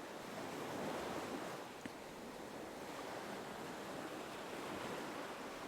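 Gentle ocean waves washing in a soft, even hiss that swells and eases slowly.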